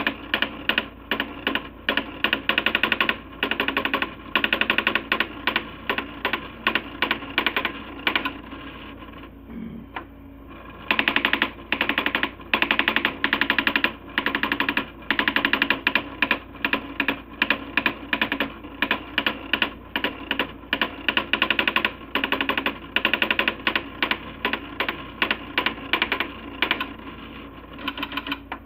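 Coleco Adam SmartWriter daisy wheel printer hammering out clusters of rapid strikes as it prints large graphic letters built from dots. The strikes break off for about two seconds near the middle, then resume.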